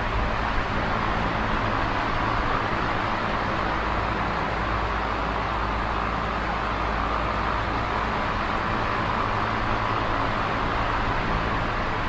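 Electric fan running steadily: a constant rush of moving air with a low, even hum underneath.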